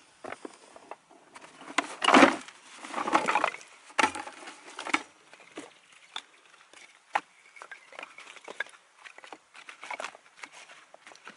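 Short pieces of dead wood clattering as they are tipped out of a plastic bucket onto a pile, loudest about two seconds in and again around three seconds. After that come scattered light wooden knocks as sticks are laid one by one.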